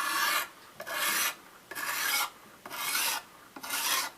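Sharpening stone on a fixed-angle knife sharpening jig rasping across a steel knife blade in steady back-and-forth strokes. There are five strokes at about one a second, each about half a second long.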